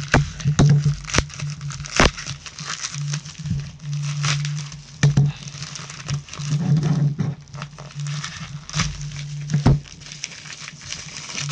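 Padded bubble mailer and its plastic being handled and opened, crinkling and crackling with many sharp crackles throughout. A low hum cuts in and out underneath.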